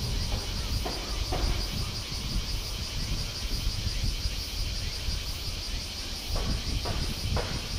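Steady high-pitched insect chorus, pulsing evenly, over a low outdoor rumble, with a few faint knocks about a second in and again near the end.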